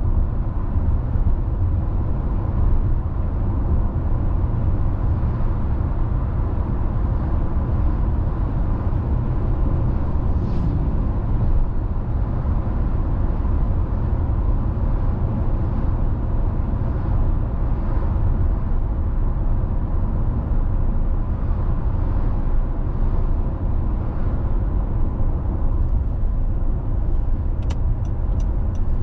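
A car driving at a steady speed: a constant low rumble of tyre, road and engine noise. Near the end a run of quick, evenly spaced ticks begins, about three a second.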